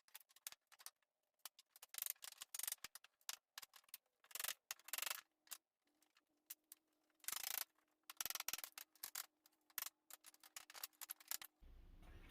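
Faint, irregular light hammer taps and short knocks on a wooden table skirt being knocked loose from the tabletop.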